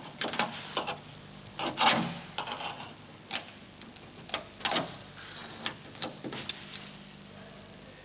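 Knife blade scraping along blistered paint over rusted steel, lifting loose flakes of paint and rust scale: a run of irregular scratchy crackles, the loudest about two seconds in, dying away after about seven seconds. The paint comes away because rust spreading underneath has forced it up off the steel.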